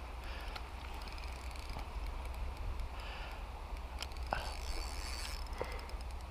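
Spinning reel being wound against a hooked carp, its gears whirring and clicking, with a steady low rumble underneath and a couple of sharp clicks about four and a half and five and a half seconds in.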